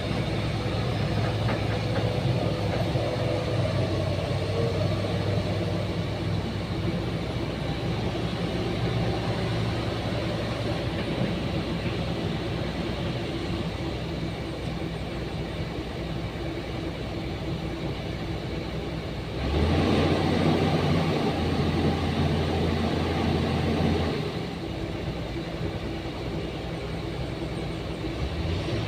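Excavator engine running steadily with a low drone. About twenty seconds in it grows louder and heavier for some four seconds, then settles back, as under added load while drilling the ground.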